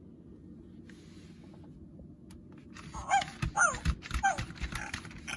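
FurReal Friends JJ My Jumping Pug toy dog playing recorded puppy barks through its speaker: a quick run of short barks starting about three seconds in, mixed with clicks and thumps from its motorised body moving.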